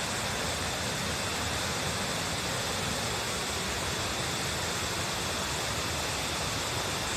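Waterfall: water falling and rushing in a steady, unbroken roar of noise.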